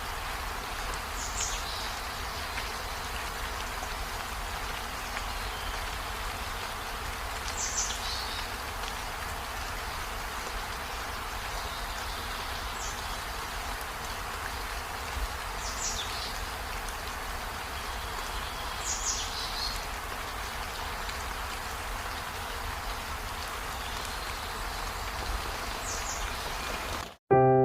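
Steady rain falling, with a short high chirp repeating every few seconds over it.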